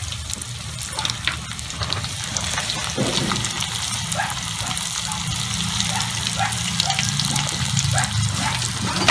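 Chicken pieces deep-frying in hot oil in a small steel pan, a steady sizzle with crackling pops. Faint short squeaks come in repeatedly from about three seconds in.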